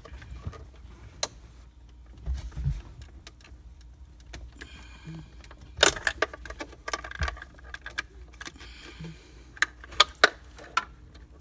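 Plastic clicks and light rattling as wiring-harness plugs are unclipped from behind a car's dashboard touchscreen. Sharp clicks come singly about a second in, in a quick cluster about six seconds in, and again around ten seconds.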